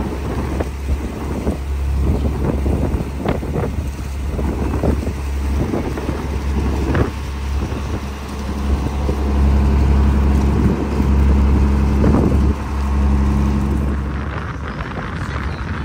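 Small boat's engine running steadily under way, a low hum that swells louder for a few seconds midway, with gusts of wind on the microphone.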